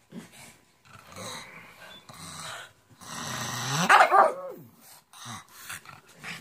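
Small dogs, a pug and shih tzus, growling and barking at each other; a growl builds from about three seconds in and breaks into one loud bark whose pitch rises then falls, near four seconds.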